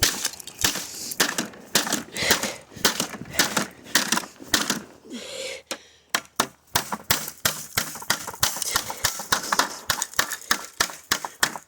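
Rapid, irregular blows smashing hard plastic, several strikes a second with cracking and clattering, pausing briefly about halfway through.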